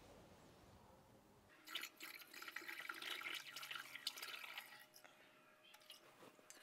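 Alcohol poured through a funnel into a glass bottle of pomegranate syrup: liquid splashing and gurgling into the bottle for about three seconds, starting about a second and a half in, then trickling off.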